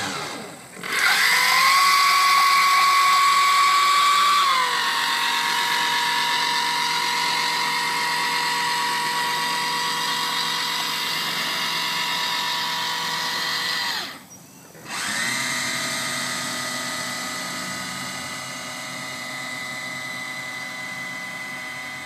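Quadcopter drone's propellers whining at a steady high pitch. The pitch dips slightly about four seconds in, and the sound breaks off for about a second partway through before returning steady.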